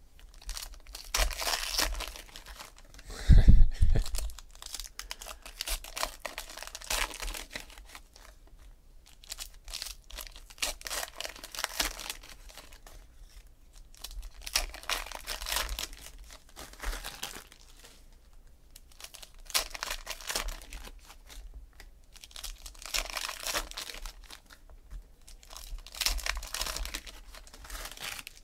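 Foil trading-card pack wrappers torn open and crinkled by hand, in a burst every few seconds as one pack after another is opened. A heavy thump about three seconds in is the loudest sound.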